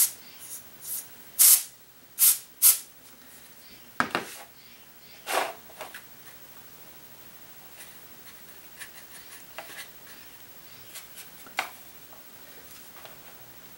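Can of compressed air (an electronics duster) let off in a series of short blasts, blowing puddles of wet watercolour paint across the paper into twig-like shapes. Most of the blasts come in the first six seconds, with one more near the end.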